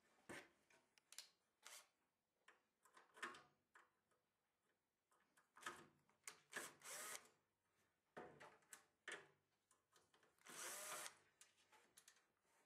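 Faint Makita cordless drill/driver turning the screws of an oven door hinge in a series of short runs with pauses between them. The longest run, about a second, comes near the end.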